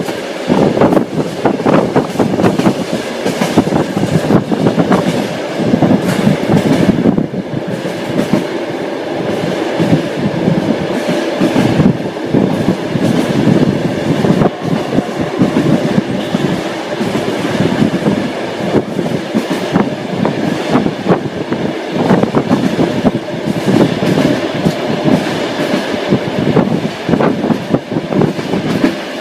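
Railway carriage wheels clattering over rail joints as a train runs along. It is a loud, continuous rattle of knocks and clacks, with no pause.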